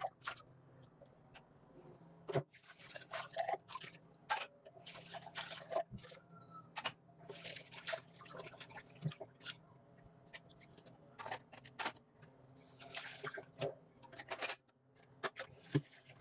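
Dishes being rinsed under a running kitchen tap over a stainless steel sink: water splashing and dripping in irregular spurts, with sharp knocks of glasses and dishes being handled.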